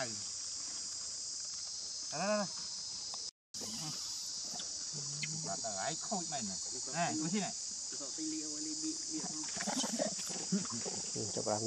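Steady high-pitched chorus of insects, with short rising-and-falling voiced calls now and then over it. The sound cuts out completely for a moment about three and a half seconds in.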